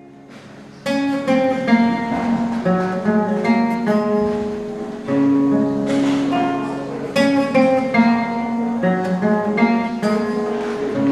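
Solo classical guitar, single notes picked in a repeating melodic phrase. It starts quietly and comes in strongly about a second in.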